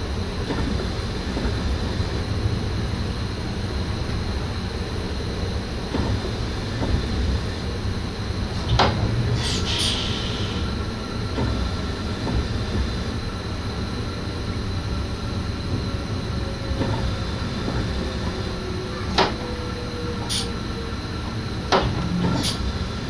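NS SGM Sprinter electric train running, heard from inside the driver's cab: a steady low rumble, a faint steady high tone, and a tone that slowly falls in pitch for several seconds in the middle. A few sharp clacks from the track come through, about a third of the way in and again near the end.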